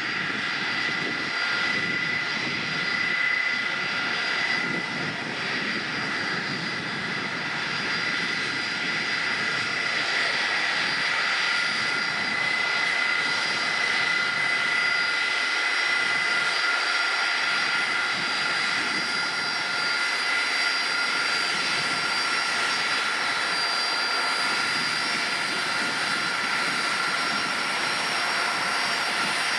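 Boeing 747SP's jet engines running steadily: a continuous rushing noise with a high, even whine that neither rises nor falls.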